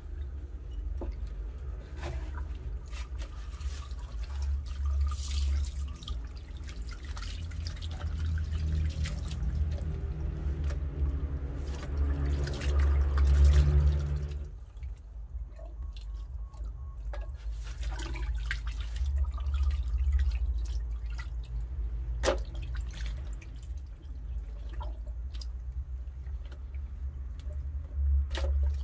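Water running and dripping from a hose onto wet banana leaves, with wet handling sounds and short knocks as goat stomach and intestines are pulled apart. The water sound swells and then drops off suddenly about halfway through.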